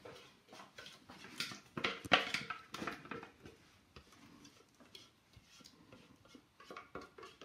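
A spatula scraping and knocking against a stainless-steel mixing bowl as an apple mixture is tipped out into a glass baking dish, with a burst of clattering knocks about two seconds in and softer scraping ticks after.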